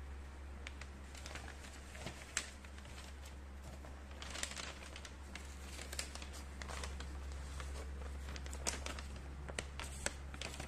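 Thin paper instruction leaflet rustling and crinkling as it is unfolded and handled, with scattered sharp crackles. A steady low hum runs underneath.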